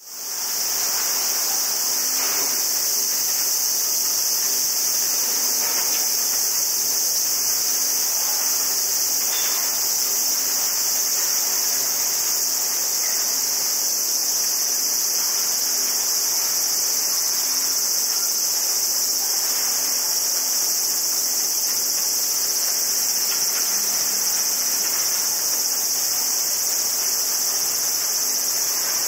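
A steady, high buzzing chorus of cicadas that runs on without a break.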